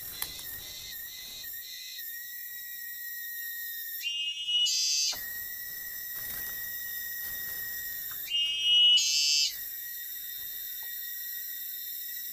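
Steady, high-pitched chorus of forest insects, broken twice by a louder whistling call about a second long, about four and eight seconds in.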